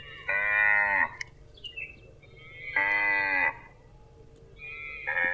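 Cattle mooing: three short, loud moos a couple of seconds apart, the last beginning near the end.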